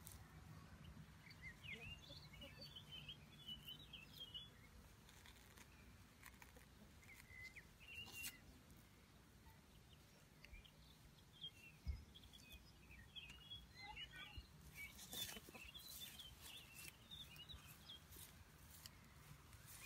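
Near silence, with faint birdsong in the background: quick high chirps in two spells, one early and one in the second half, plus a few soft clicks.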